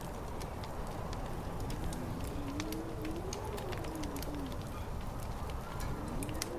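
Layered ambience: a fire crackling with a scatter of small pops over a steady low rumble, and a howling wind tone that rises and falls in pitch from about two seconds in, starting up again near the end.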